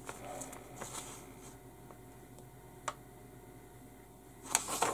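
Faint rustling and a single light click, then louder crackly paper rustling near the end as a page of a plastic model kit's instruction booklet is turned.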